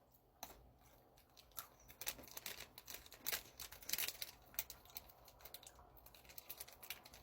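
Snack packaging being handled and opened: a quick run of small crinkles, crackles and clicks of plastic wrapper and cardboard.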